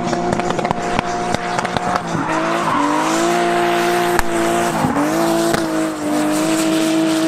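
Drift car's engine held at high revs through a drift with tyres squealing. The revs dip and recover briefly about two seconds in, and twice more around five seconds in.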